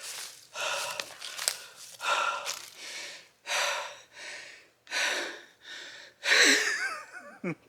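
A man panting hard from the effort of chopping with an axe: a dozen or so loud breaths, in and out, about two a second. There is a faint click or two in the first couple of seconds, and a short groan falling in pitch near the end.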